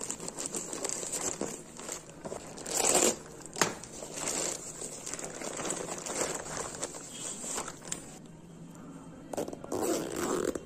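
Thin plastic courier mailer bag crinkling and rustling in irregular handfuls as it is handled and a plush toy is pulled out of it. The loudest crackle comes about three seconds in.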